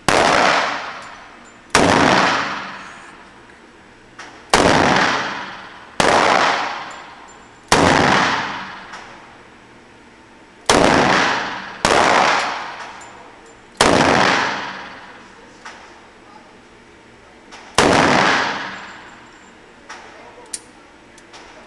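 .44 Magnum revolver firing about nine loud shots, one to four seconds apart. Each shot is followed by a long ringing echo from the indoor range.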